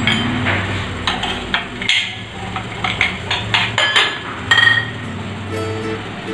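Aluminium puttu steamer parts clinking and knocking as the tube is handled and set back on its pot: a run of sharp metal knocks, with a ringing clink about four and a half seconds in.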